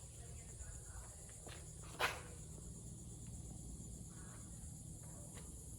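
Faint, steady high-pitched insect chirring, with a low rumble underneath and a single sharp click about two seconds in.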